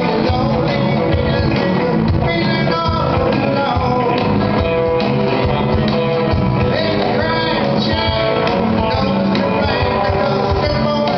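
Live band playing an upbeat rock-and-roll tune on acoustic guitar, electric bass and cajon, with a steady beat.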